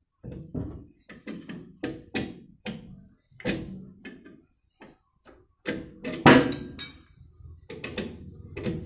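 Car jack being pumped to raise the front suspension: a string of irregular metallic clacks and knocks, the loudest about six seconds in.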